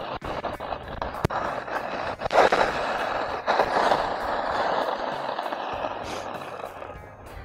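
106 cm Summit skiboards carving on groomed snow: a rough hiss of the edges scraping across the corduroy, swelling with each turn, loudest about two and a half and again about four seconds in, then fading. A single sharp click about a second in.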